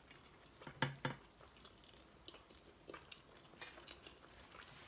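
Chewing and biting into a chicken burrito close to the microphone, with wet mouth clicks. Two sharp knocks about a second in are the loudest sounds.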